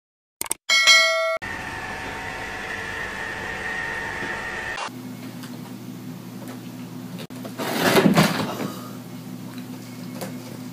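A click and a short bell-like chime, then a steady background hum. About eight seconds in there is a brief thud as a cat jumps down off a carpeted cat house.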